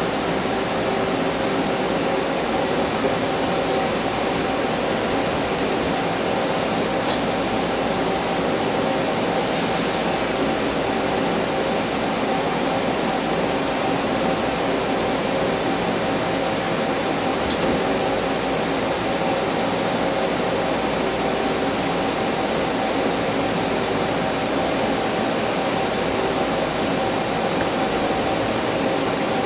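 Doosan PUMA TT1800SY twin-spindle, twin-turret CNC turning center running while machining: a steady mechanical hum with several steady tones, and a couple of faint ticks.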